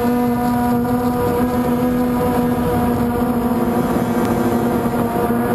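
DJI Phantom quadcopter's motors and propellers running in flight, a steady buzzing hum held at one pitch, heard close up from the camera the drone carries.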